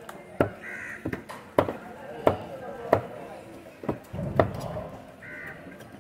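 A knife chopping through a large fish into a wooden chopping block, about seven sharp strikes spaced half a second to a second apart.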